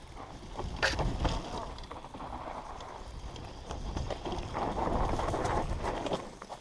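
Mountain bike descending a dirt trail: tyres rolling over dirt and small stones, with wind buffeting the camera microphone and a few sharp knocks and rattles from the bike about a second in.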